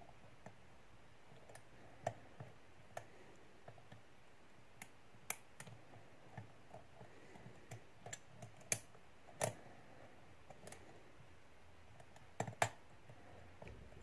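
Faint, irregular small metallic clicks of a hook pick working the pin tumblers of a Master Lock 410 lockout padlock under light tension, with a few louder clicks scattered through.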